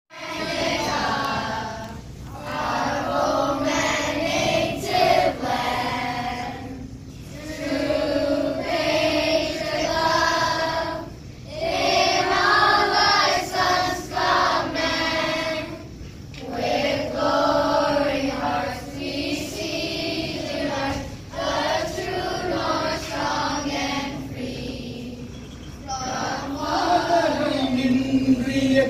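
Children's choir singing, in phrases a few seconds long with short breaks between them.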